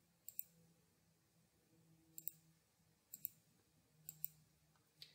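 Faint button clicks in quick pairs, four pairs about a second apart and a single click near the end, against near silence.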